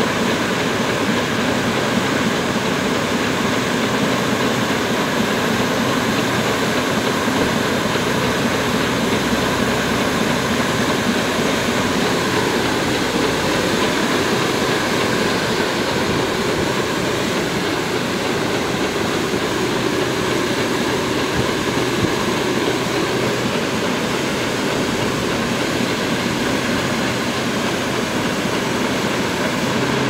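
Air-blast orchard sprayer's 75 cm axial fan running steadily, a continuous rushing blast of air and spray mist with a low machine hum beneath it.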